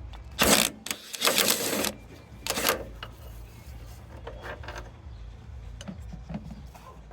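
Hand tool undoing a bolt: three short bursts of rapid mechanical rattling within the first three seconds, over a low steady hum.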